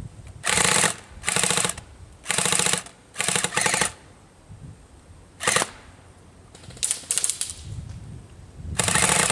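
Airsoft flak-gun rig of electric airsoft guns firing full-auto in short bursts, about eight of them, each under a second, with a fast even rattle.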